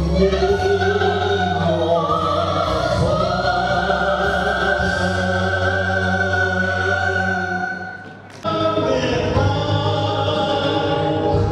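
A Vietnamese song sung over instrumental backing, ending a phrase on a long held note; the music breaks off briefly about eight seconds in, then carries on.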